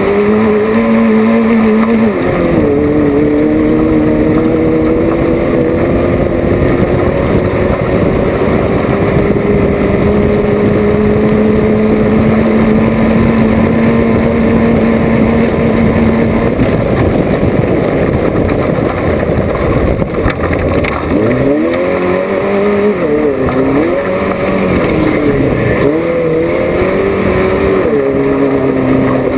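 Off-road race car's engine running hard, its revs dropping about two seconds in, then climbing slowly over a long stretch before falling and rising again several times as the throttle is lifted and reapplied.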